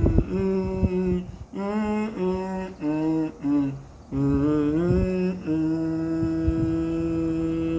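A person humming a slow melody with closed lips, in short notes that step up and down with brief breaks. About two-thirds of the way through it settles into one long, steady held note.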